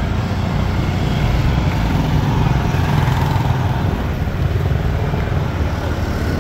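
Street traffic of motorcycles and motorcycle tricycles: small engines running in a steady low rumble as they pass.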